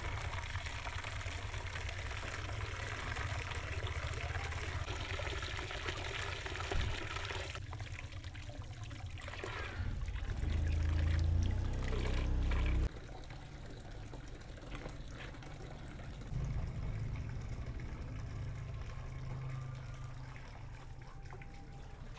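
Water running or pouring steadily, cutting off about eight seconds in. It is followed by a low rumble lasting about three seconds, the loudest sound here, then a softer low hum.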